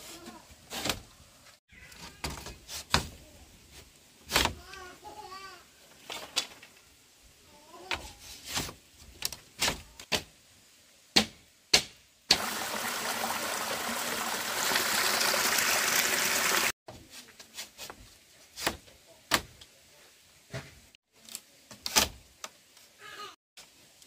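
Irregular knocks and clatters of things being handled. About halfway through, a loud steady rushing noise runs for about four seconds and cuts off suddenly.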